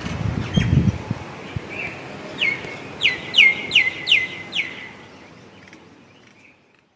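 A bird calling: a quick run of six notes, each sliding down in pitch, beginning about two and a half seconds in. A few low thumps come in the first second, and the sound fades out near the end.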